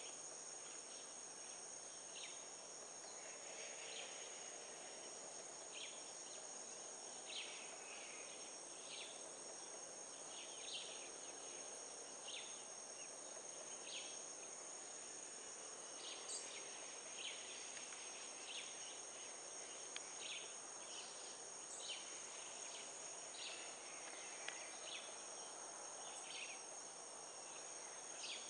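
Faint, steady, high-pitched insect buzzing, with short high chirps every second or two.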